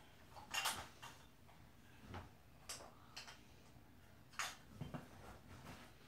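Light, irregular clicks and clatter of small plastic toys being handled, about half a dozen taps, the clearest about half a second and four and a half seconds in.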